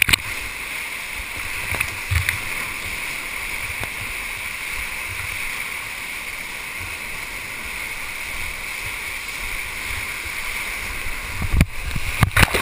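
Whitewater rushing steadily around a surfing kayak, heard right at the water's surface. Sudden splashes and knocks come about two seconds in and again in a loud cluster near the end.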